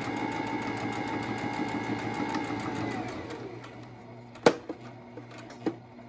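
Electric sewing machine stitching the edge of a cotton face mask, running at a steady speed, then slowing and stopping about three seconds in as the sewist halts to pivot at a corner. A single sharp click follows about a second later, then a few small handling clicks.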